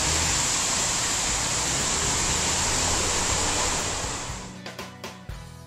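Water pouring down a tall man-made waterfall wall, Houston's Waterwall fountain, in a steady rushing that fades out from about four seconds in.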